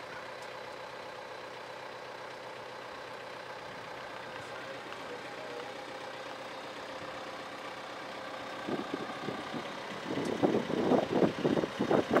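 Tractor engine running steadily while it pulls a garlic transplanter. From about nine seconds in, irregular louder bursts of noise come on top and grow toward the end.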